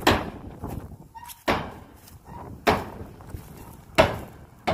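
A series of five heavy knocks or thuds, about one to one and a half seconds apart, each dying away quickly, over a low rumble.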